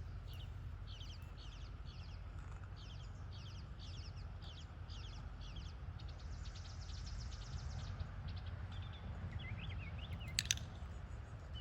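Outdoor ambience: rapidly repeated high chirps over a low steady rumble, with a single sharp click about ten and a half seconds in.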